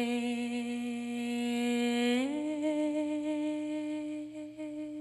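A woman's voice holding a long closing note of the song, humming, steady at first, then stepping up to a slightly higher note about two seconds in and wavering gently on it.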